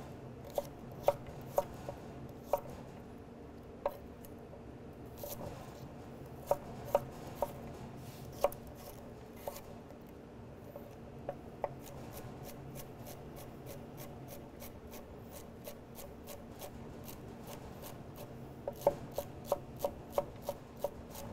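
Kitchen knife dicing celery stalks on a wooden cutting board: sharp knocks of the blade on the board, scattered at first, then a quick, even run of light chopping strikes, with a few louder knocks near the end.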